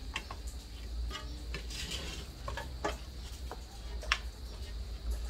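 Scalded chickens being turned by hand in a metal basin of hot water: scattered soft knocks and scrapes against the basin, the sharpest clack about four seconds in.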